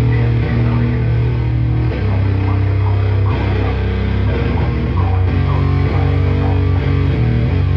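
A live rock band playing a heavy, distorted song: electric guitar and bass holding loud low notes that change every couple of seconds. A higher guitar line wavers above them through the middle.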